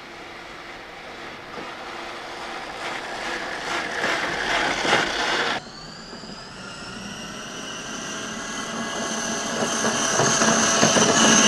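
Electric motors and gear drives of 1/10-scale RC trail trucks whining, with tyres working over loose dirt, getting louder as a truck approaches. The sound cuts off suddenly about halfway through, then a second truck's steadier, higher whine builds until it cuts off again near the end.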